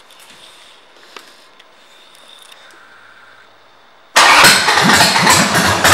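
A Harley-Davidson Sportster 883's air-cooled V-twin with aftermarket exhaust pipes starts about four seconds in and runs loud, with an uneven pulsing beat. Before that there are only faint small clicks.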